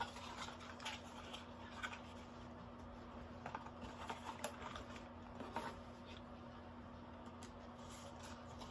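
Faint handling of a plastic cleanser bottle and its cardboard box: scattered light taps, clicks and scrapes, busiest around the middle, over a steady low electrical hum.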